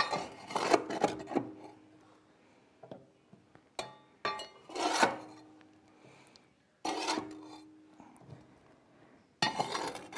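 Shovel scraping ash off the floor of a Hearthstone wood stove's firebox and tipping it into a bucket: five scrapes, most ending in a short metallic ring.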